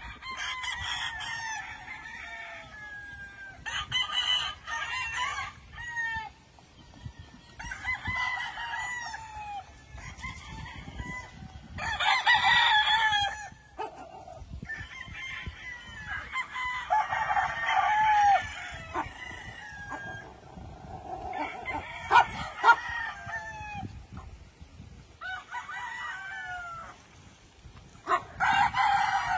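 Several gamefowl roosters crowing, one crow every few seconds, with some crows overlapping.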